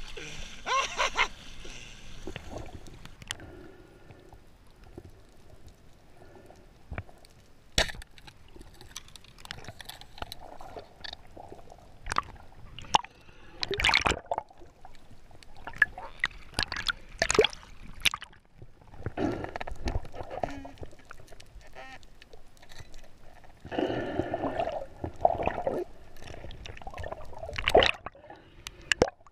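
Water sloshing and gurgling as a swimmer moves at and under the surface, coming in irregular bursts with quieter stretches between.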